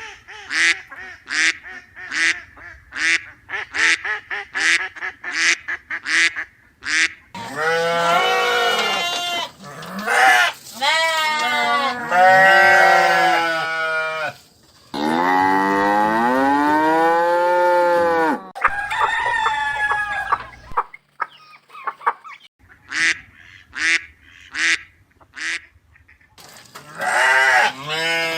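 Farm animals calling: a quick run of short honking calls, about two a second, then several long calls that bend up and down in pitch, with short calls again near the end.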